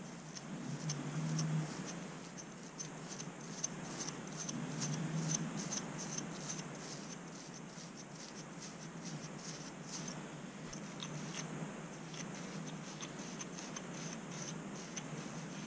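Scratching at a scalp along the hairline to lift seborrheic dermatitis dandruff flakes: quick, light scrapes, about three a second, over a low steady hum.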